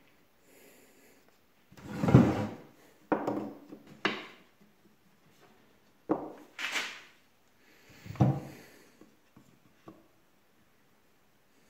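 Wooden cart parts being handled and set down on a workbench: a string of irregular wooden knocks and short scrapes, the loudest about two seconds in, a few more over the next several seconds.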